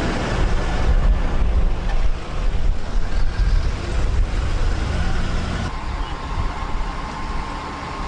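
Heavy truck engine rumbling as a police water-cannon truck drives past close by. About six seconds in, a steady high whine joins the rumble.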